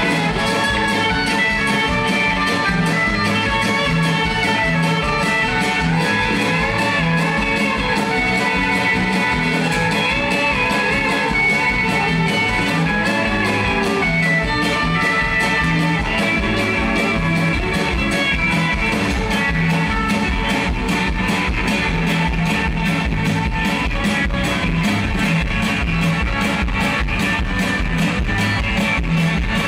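Live folk-rock band playing a fast instrumental reel, with acoustic and electric guitars over a steady drum beat.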